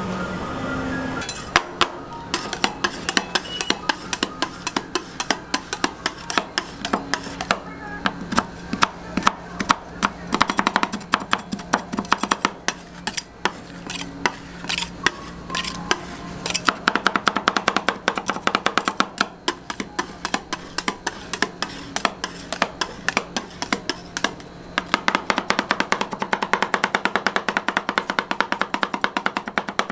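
Two metal spatulas chopping and tapping on a steel cold plate as crushed biscuit is worked into freezing ice cream base. The clatter of metal on metal starts about a second in, goes irregularly, then turns into a fast, even tapping over the last few seconds.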